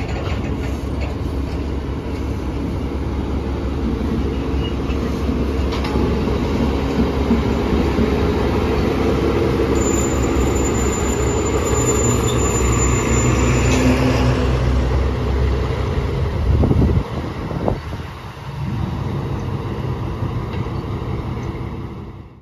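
Diesel shunting locomotive hauling tank wagons past at close range, its engine running with a steady drone that grows louder as it nears. About halfway through, a thin high squeal is held for about four seconds, and a couple of knocks follow later. The sound drops away just before the end.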